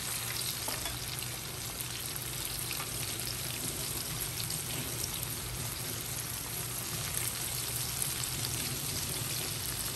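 Cornstarch-dredged chicken pieces deep-frying in a pot of hot oil: a steady bubbling sizzle.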